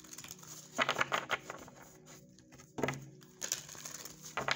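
A tarot card deck being shuffled by hand, in several short bursts of quick card flicks and slaps.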